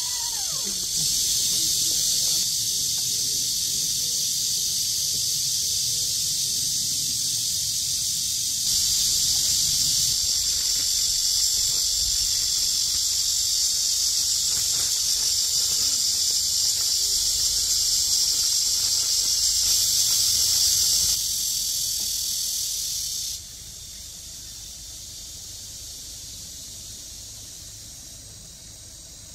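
Summer insect chorus: a dense, steady, high-pitched buzz that shifts in loudness a few times and drops sharply about 23 seconds in.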